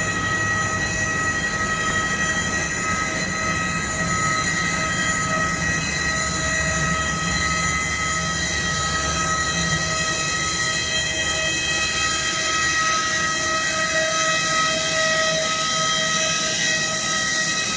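Loud, steady whine from an aircraft's turbine, several high tones held over a low rumble.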